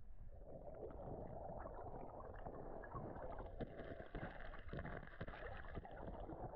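Muffled rushing and gurgling of river water, flecked with small splashes and clicks.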